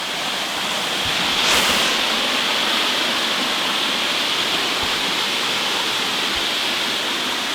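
Small woodland waterfall rushing steadily at close range, an unbroken hiss of falling water that swells briefly about a second and a half in.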